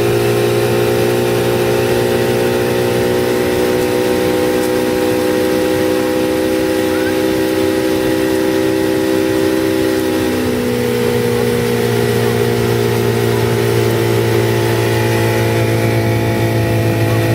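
Motorboat engine running steadily under way; its pitch drops a little about ten seconds in and then holds at the lower note.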